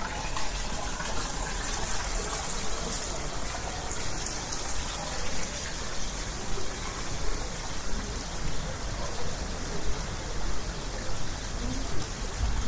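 Fountain water splashing steadily, with a murmur of people's voices.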